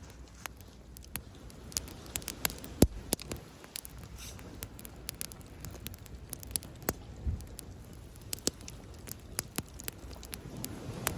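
Wood fire crackling, with sharp irregular pops and snaps, the loudest about three seconds in, over a low steady rumble that grows a little near the end.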